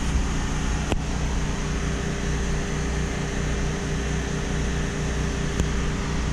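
Steady hum of running machinery with an even hiss under it, and a faint click about a second in and another near the end.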